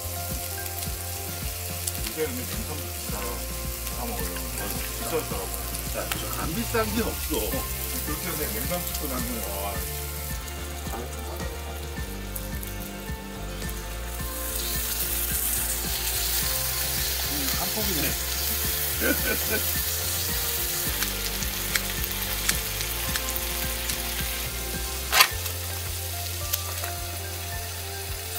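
Frozen sliced pork belly sizzling in a hot pan, the sizzle growing louder about halfway through. A single sharp click near the end.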